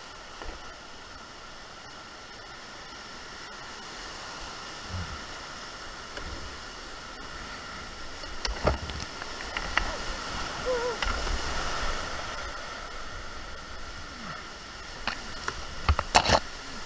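Fast, flooded whitewater rushing steadily around a canoe running a rapid, with paddle splashes about halfway through. Near the end comes a cluster of sharp knocks and splashes, the loudest moment.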